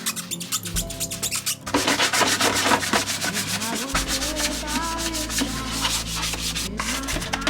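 A brush scrubbing a surface in quick, repeated strokes, with a short pause a little under two seconds in.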